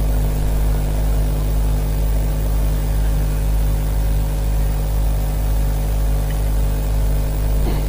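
Steady electrical hum from a sound system: a low buzz of several steady stacked tones that does not change.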